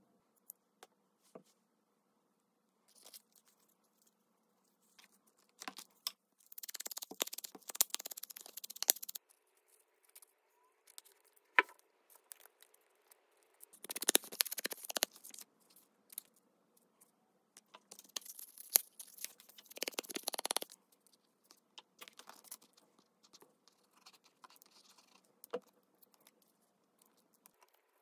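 Paper being worked by hand: three scratchy stretches of a few seconds each, with scattered light taps and clicks between them.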